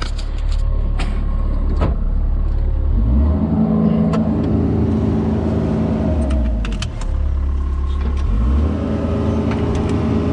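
Mini excavator's diesel engine running with a low rumble. It revs up about three seconds in, holds for a few seconds, drops back, then revs up again near the end. A few sharp metallic clanks in the first seconds.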